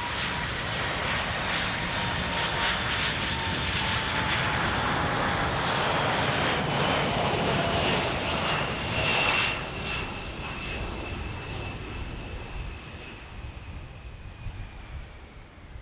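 Boeing 747-400 freighter's four turbofan engines on landing approach, passing by: a jet roar with a high whine that slides slowly down in pitch. It is loudest about nine seconds in, then fades as the jet moves away.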